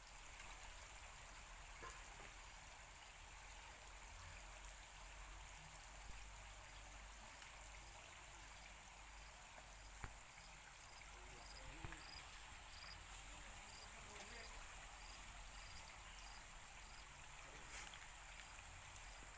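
Faint, steady trickling of running water, with a faint high ticking about twice a second for several seconds midway and a few isolated clicks.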